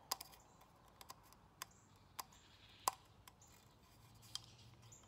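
Scattered light clicks and taps, about half a dozen, the loudest a little past halfway, from fingers handling a plastic oil filter housing cap while working a new rubber O-ring gasket onto it.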